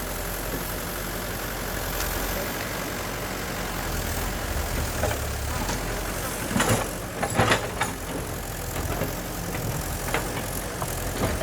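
Heavy diesel construction machinery running steadily with a low engine rumble, with a short run of sharp metallic clanks about two-thirds of the way through.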